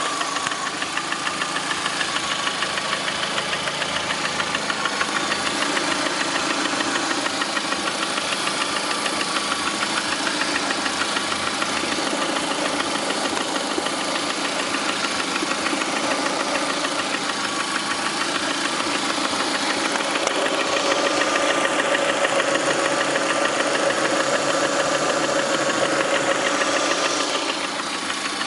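Lada Priora's 21126 1.6-litre sixteen-valve engine running with a fast, steady knocking, a knock that appeared about 500 km after Suprotec additive was put in. It gets a little louder for several seconds about two-thirds of the way through.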